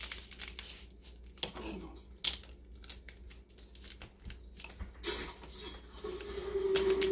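Adhesive craft vinyl being peeled and crinkled off its backing sheet during weeding, with small clicks and scrapes from the weeding tool and a longer tearing rasp about five seconds in. A steady low hum comes in near the end.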